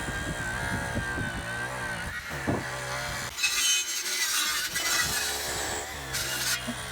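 Power saw cutting wooden I-joists.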